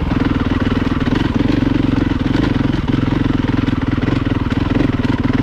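Dirt bike engine running steadily under load as the bike climbs a rocky dirt track.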